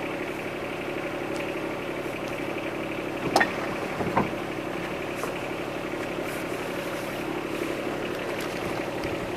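Yanmar SC2450 compact tractor's three-cylinder diesel engine running steadily at an even speed. There is a short sharp click about three and a half seconds in and a fainter one just after.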